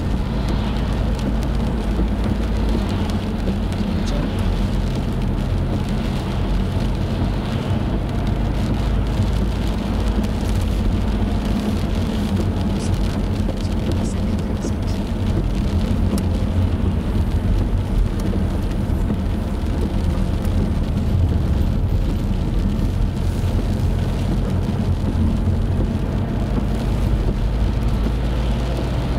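A car driving in the rain, heard from inside the cabin: a steady low engine and road drone, with the hiss of tyres on the wet road and rain on the car.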